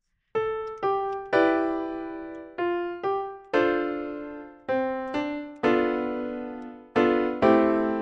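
Piano-like keyboard notes from GarageBand on an iPad, played from a Korg nanoKEY Studio MIDI controller. About a dozen notes come at a slow, uneven pace, each struck and left to fade.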